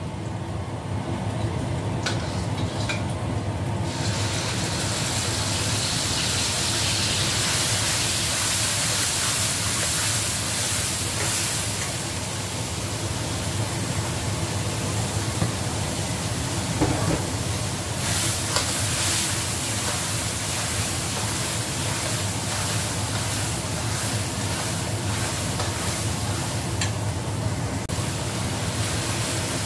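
Blended chili, shallot and garlic paste sizzling as it fries in hot oil in a stainless steel wok, stirred with a metal spatula. The sizzling starts suddenly about four seconds in, when the paste goes into the oil, and then carries on steadily.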